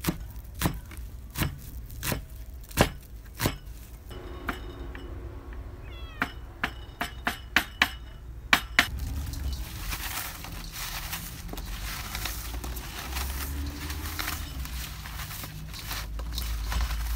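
Cleaver chopping leafy greens on a wooden board, a stroke about every 0.7 seconds, with a cat meowing in the middle. From about nine seconds in, a steady rustle and scrape of hands working cut elephant foot yam stems in a steel bowl.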